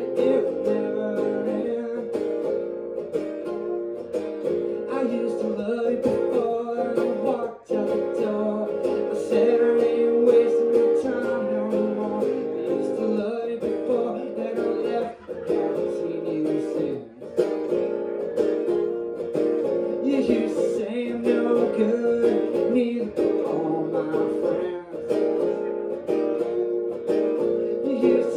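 Acoustic guitar strummed steadily in a blues song, with a few brief breaks in the strumming.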